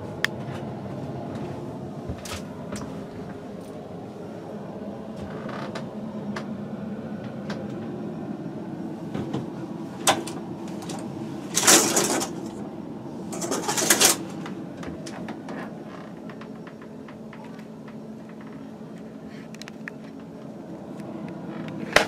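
Steady low hum of a ship's cabin, with small handling clicks. A little past the middle come two loud hissing swishes, each about a second long.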